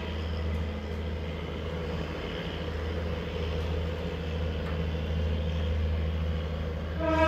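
Engine of Sperry Rail Service rail-test car SRS128 running steadily as the car approaches, a low steady rumble. Its horn starts to blow near the end.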